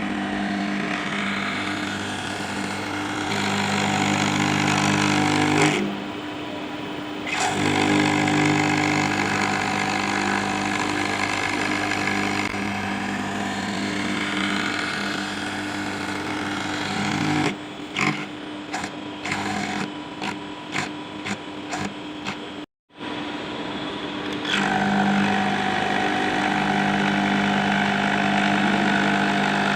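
CNC milling machine cutting acrylic: a steady motor hum with a hiss of cutting over it, its pitch shifting a little from one stretch to the next. It is chopped off abruptly several times, with a brief drop to silence about three-quarters of the way through.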